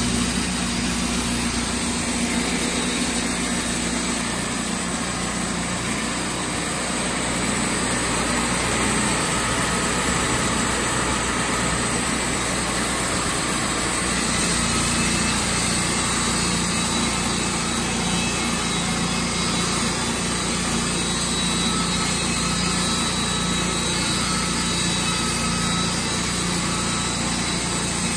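Portable band sawmill running steadily under load: its engine drives the band blade as it cuts lengthwise along a log.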